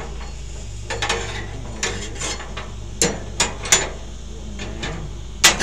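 Metal spatula and tongs clinking and scraping against a wire grill grate as racks of pork ribs are turned: about half a dozen sharp clicks, several close together around the middle and a loud one near the end, over a steady low hum.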